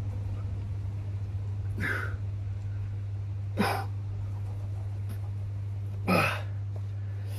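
A man breathing out hard three times, about every two seconds, with the effort of lifting dumbbells in shoulder raises. A steady low hum runs underneath.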